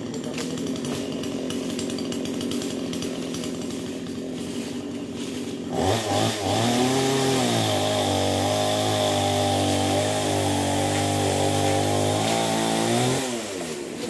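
Chainsaw running steadily, then revved up about six seconds in and held at high speed for about seven seconds before dropping back near the end.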